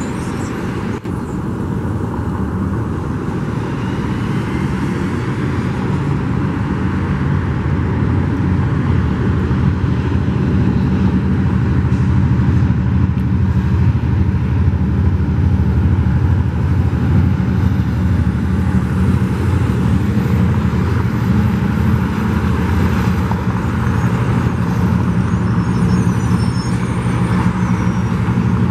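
Metrolink commuter train's diesel locomotive running as the train passes on an elevated flyover, a steady low engine drone that grows louder over the first several seconds, mixed with street traffic.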